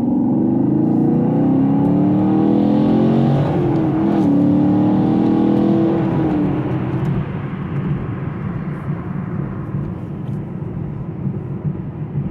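Chevy Camaro SS 6.2-litre V8 accelerating hard, its pitch rising, with a short dip in the rise about four seconds in. About halfway through the engine eases off and settles into a steadier, lower drone with road noise.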